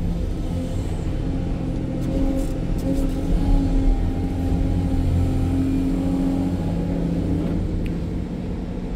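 SANY hydraulic excavator's diesel engine running steadily under load, heard from inside the operator's cab, working harder for a couple of seconds as the bucket digs in and lifts a load of dirt.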